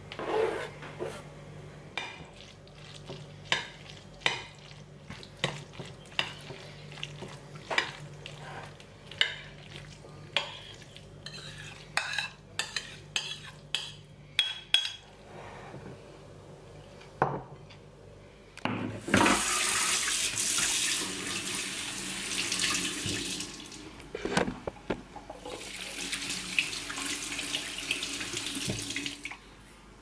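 A metal spoon clinking and scraping in a ceramic bowl as a pasta salad is mixed, in scattered taps that come faster just before the middle. Later, water runs from a kitchen tap for about four seconds, stops, then runs again for about three seconds.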